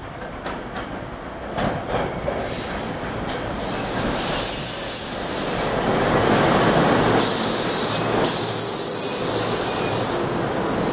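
SEPTA Regional Rail electric commuter train coming into the station and rolling past along the platform, growing louder as it comes alongside, with a few clicks in the first two seconds.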